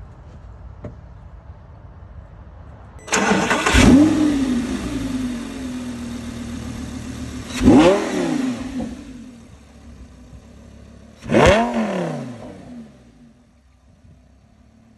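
Lamborghini Gallardo's V10 engine starting about three seconds in, flaring up in revs and settling to idle. It is then blipped twice, each rev rising and falling back, before idling more quietly near the end.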